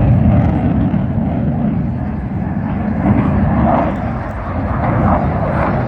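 Loud rumble of a Eurofighter Typhoon's twin jet engines in flight. People's voices are heard faintly over it from about halfway through.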